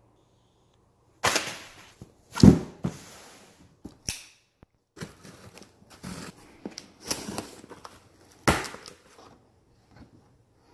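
Cardboard shipping box slit open with a knife along its packing tape and its flaps pulled back: a string of sharp cardboard scrapes and knocks, loudest about two and a half seconds in and again about eight seconds in.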